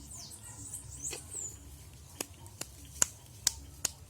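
Campfire wood crackling, with five sharp pops in the second half, while small birds chirp high-pitched through the first second and a half.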